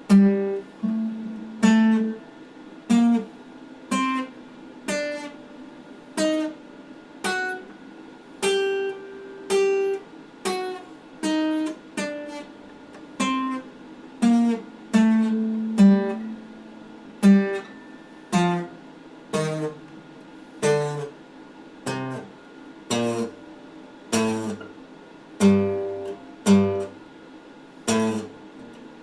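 Acoustic guitar played slowly, one picked note or small chord about every second, each ringing out and fading before the next. Deeper bass notes come in during the second half.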